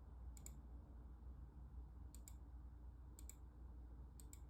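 Computer mouse clicking four times, each a quick press-and-release double click, about a second apart, over a faint low hum.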